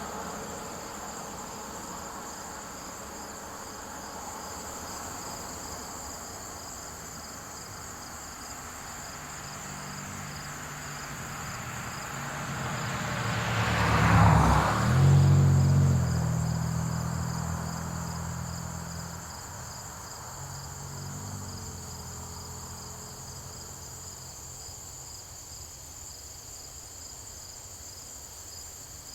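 Crickets chirring steadily in the background while a single motor vehicle drives past: its tyre and engine sound builds from about ten seconds in, is loudest near the middle, then fades away, the engine note lower as it moves off.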